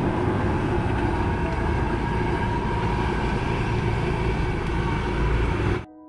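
Steady street noise with a heavy traffic-like rumble, which cuts off suddenly near the end, leaving faint piano music.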